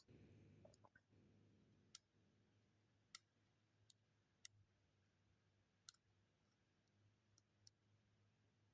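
Near silence broken by about eight faint, sharp clicks at irregular intervals: a lock pick working the pin stacks of a Goal Z lock cylinder.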